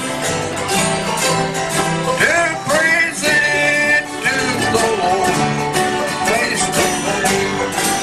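Live bluegrass band playing: acoustic guitars and other plucked string instruments strumming and picking a steady country beat while a man sings lead into a microphone.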